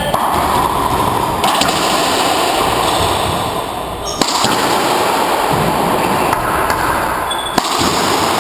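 A racquetball rally: a few sharp cracks of the ball struck by racquets and rebounding off the court walls, the loudest about four seconds in and again near the end, over steady background noise.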